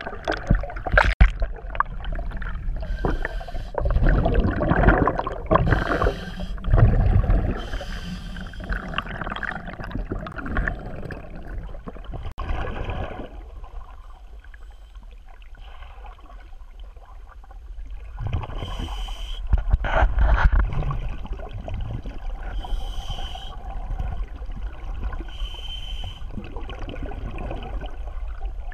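Scuba divers' regulator breathing heard underwater beneath the ice: exhaled air bubbles out in gurgling bursts every few seconds, with quieter stretches of inhaling between. A splash about a second in as the camera goes under the water.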